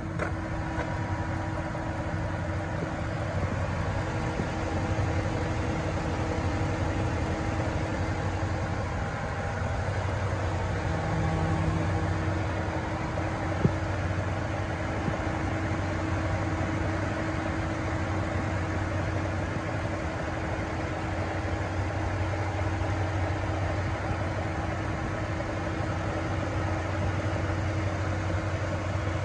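A 2013 Dodge Ram 1500 pickup's engine idling steadily. A single short click sounds about 14 seconds in.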